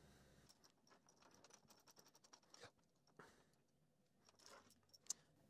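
Near silence with faint small clicks and taps of metal being handled: a machine vise and its hold-down bolts being placed on a milling-machine table. The clicks come thickest in the first half, with one sharper tick near the end.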